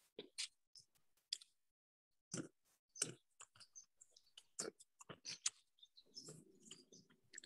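Faint, irregular chewing and eating noises, scattered short clicks and crunches, picked up by a participant's open microphone on a video call, with a low murmur about six seconds in.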